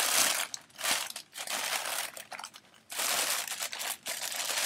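Thin white wrapping sheet crinkling as it is handled and pulled out of a gift box, in several bursts with short pauses between.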